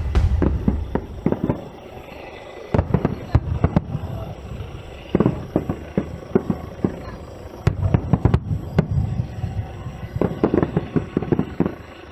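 Aerial fireworks bursting: clusters of rapid sharp crackling bangs, one cluster every two or three seconds, with quieter gaps between.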